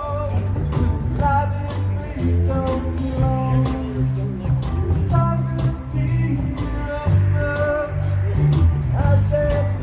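Live band playing rock and roll, with a steady bass line, regular drum beats and melodic guitar lines.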